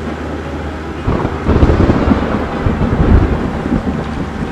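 Thunder rumbling: it swells about a second in, is loudest in the middle, then slowly fades, over a steady low hum.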